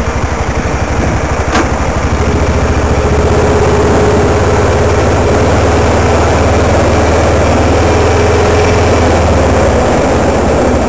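Motor vehicle engine running steadily at low speed, with a faint steady whine through the middle and a single sharp click about a second and a half in.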